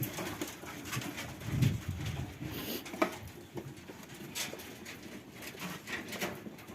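Nutria gnawing and chewing their feed, with scattered short crunches. About a second and a half in there is a low cooing call.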